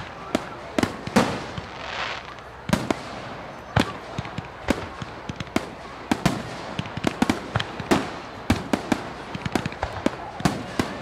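Fireworks going off: an irregular, rapid run of sharp bangs and pops, several a second and varying in loudness, over a steady crackling hiss.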